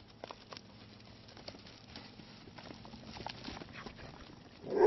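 Sheep hooves pattering on dry ground as a small flock runs past, heard as scattered light clicks. Just before the end comes a short, loud call, the loudest sound here.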